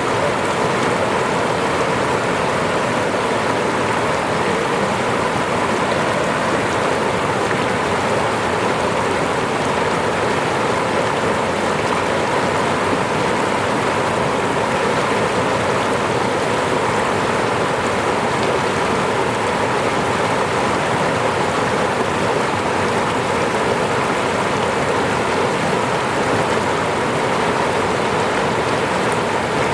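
Falling water running in a steady, unbroken rush, like a small waterfall or stream.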